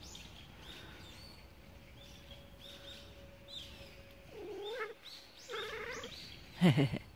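Stray cats yowling at each other while they share one plate of food: a drawn-out call about four and a half seconds in, another near six seconds, and a short, much louder one near the end. Small birds chirp repeatedly in the background.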